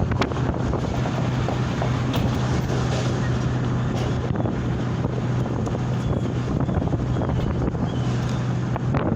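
Wind buffeting and rumbling on the microphone, with a steady low hum underneath.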